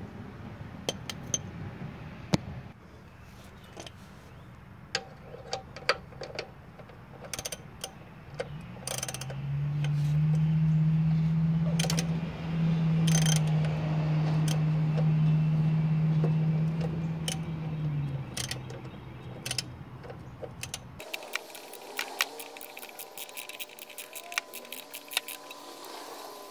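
Socket ratchet clicking in short runs as a 17 mm oil drain plug is worked loose on a BMW oil pan. Through the middle a loud, steady low hum overlays the clicks, and near the end the ratchet clicks quickly and evenly as the plug is spun out.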